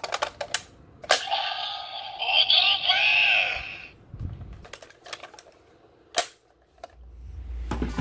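Bandai DX Kamen Rider Build toy: plastic parts clicking as they are handled and snapped together, then a burst of electronic voice and sound effects from the toy's speaker lasting about two and a half seconds. More clicks follow, and the toy's electronic standby music starts near the end.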